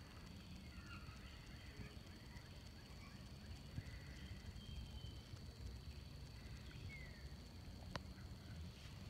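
Faint outdoor background of a yard: a few short, distant bird chirps over a low rumble and a steady thin high tone, with one sharp click about eight seconds in.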